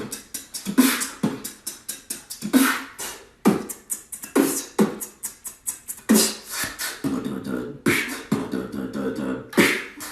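Human beatboxing: a fast run of vocal kick, snare and hi-hat sounds made with the mouth, with some low humming under the beat.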